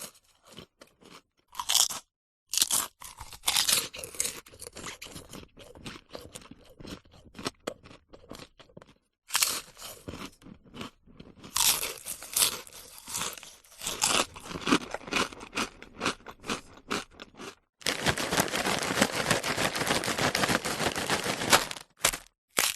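Potato chips being crunched and chewed in irregular crisp bursts, with a few seconds of dense, continuous crackling near the end.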